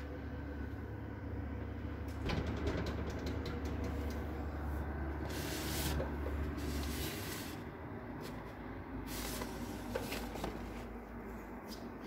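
Microwave oven running with a steady low hum that stops about seven seconds in. A quick run of sharp clicks comes a couple of seconds in, and there are two brief hissing rustles.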